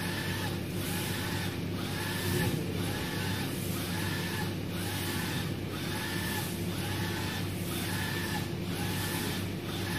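UV flatbed printer running: the print head carriage shuttles across the box about once a second, each pass a whine that rises and falls in pitch, over a steady low machine hum.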